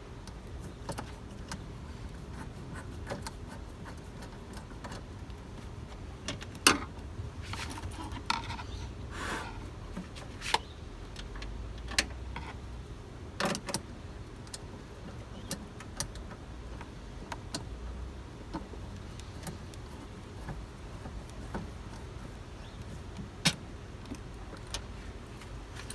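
Scattered metallic clicks and clinks of a hand tool working on a car's plastic engine air filter housing, as a stubborn bolt is fitted with a Phillips screwdriver, over a low steady rumble.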